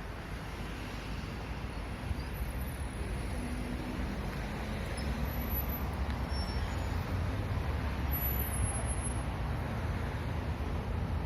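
A heavy engine running steadily, a deep rumble that grows a little louder in the second half.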